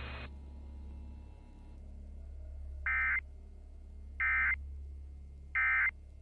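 Emergency Alert System end-of-message code: three short, identical bursts of screeching digital data tones, about 1.3 s apart, over a low steady hum. The bursts mark the end of the tornado warning alert.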